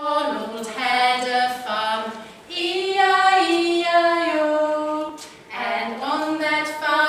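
A woman singing a slow tune without accompaniment in long held notes, pausing briefly for breath twice.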